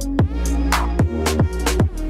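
Background electronic music with a heavy bass and a steady drum beat.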